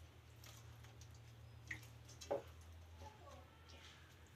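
Small fish being tipped into an aluminium kadai of greens and pressed down by hand: a few faint soft wet taps and squishes, the clearest about two seconds in, under a low steady hum.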